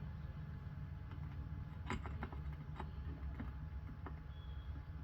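Light clicks and taps of small metal engine parts being handled during a Briggs and Stratton engine teardown, a cluster of them about two seconds in, over a steady low hum.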